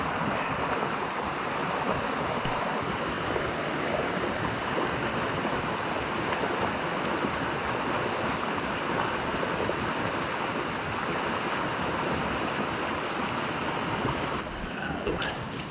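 Shallow mountain creek rushing steadily over rocks and riffles. The rush drops off near the end.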